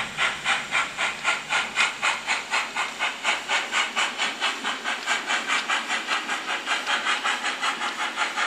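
Zimo DCC sound decoder in an H0 Fleischmann BR 38.10 (Prussian P8) steam locomotive model, playing steady steam exhaust chuffs at about four beats a second through the model's small speaker.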